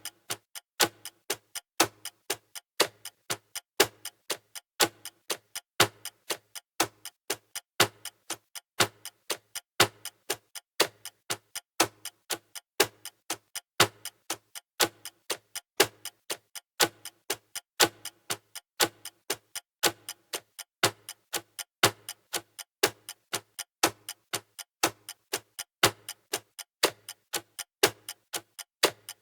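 Clocks ticking: a steady pattern of sharp ticks, several a second, with a stronger tick about once a second.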